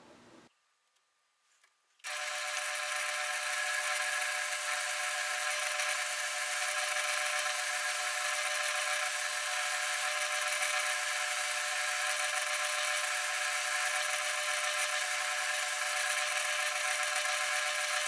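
South Bend Model A lathe running with a steady mechanical whine and hiss while parting off a drilled and tapped T-nut blank. It starts suddenly about two seconds in, after silence.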